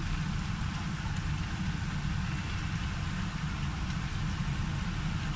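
Steady low rumbling hum, like a machine running, with no breaks or changes.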